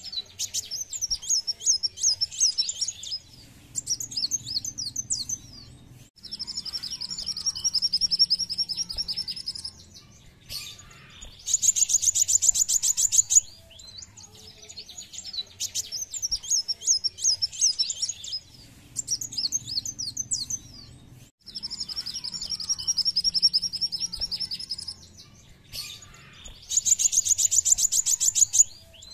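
Song of a kolibri wulung sunbird: bursts of sharp high chirps, then a rapid buzzing trill, then a very high, fast trill. The same sequence repeats about every 15 seconds, as in a looped pancingan (lure) recording played to prompt caged sunbirds to sing.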